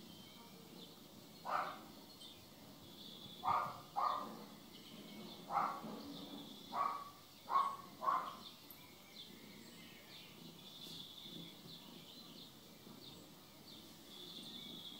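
Seven short animal calls, loud against the background, in the first half, about one to two seconds apart, two of them in quick pairs. Birds chirp faintly and steadily in the background throughout.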